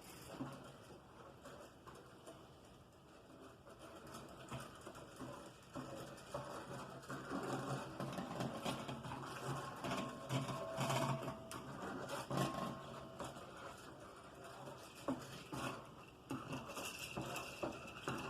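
Rapid stirring of a wet sauce mixture in a bowl: a fast run of small clicks and scrapes of the utensil against the bowl. It grows louder and busier in the middle.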